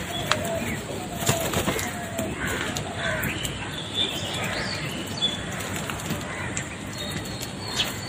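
House crows flapping their wings as they land and move about a feeding plate, with a few short bird calls scattered through.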